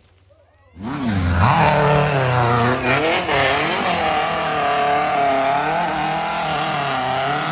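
A 2WD off-road hill-climb buggy's engine revving hard under load on a steep dirt climb, the revs rising and falling as the throttle is worked. It comes in suddenly about a second in.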